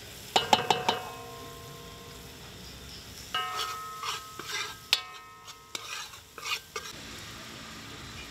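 Slotted metal spoon stirring and scraping in a large metal pot, clanking against the sides with ringing taps in two bouts, one about half a second in and a longer one from about three to seven seconds in. Underneath is the steady sizzle of chopped scallions and garlic frying in oil with curry powder.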